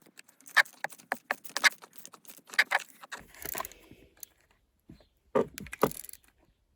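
Metal clinks and clicks of hand tools and small fasteners being handled while the gear shift lever assembly is screwed tight. The clicks come in irregular clusters: a busy run for about three seconds, a softer scrape, a short pause, and another few clicks a little after five seconds.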